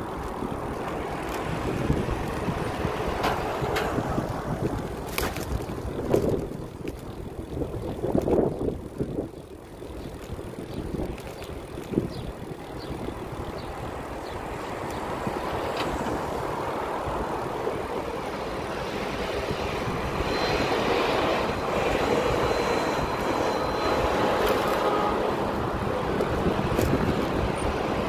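Motor traffic going by on the road, an uneven rumble that grows louder and steadier in the last third.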